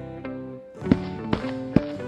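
Background music: held notes with three sharp percussive hits in the second half.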